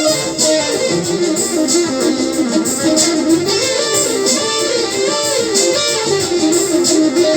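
Instrumental music with a guitar-like plucked-string sound: a melody moving up and down in quick runs of notes over steady strummed chords.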